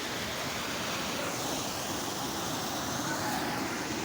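Waterfall, falling water making a steady, even rush.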